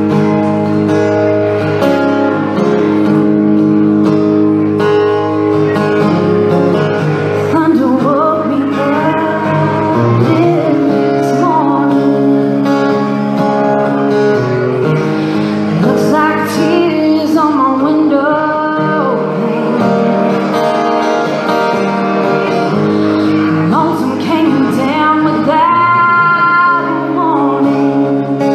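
Live country band playing the opening of a slow ballad. Guitars hold sustained chords, and a wavering melody line comes in above them about eight seconds in.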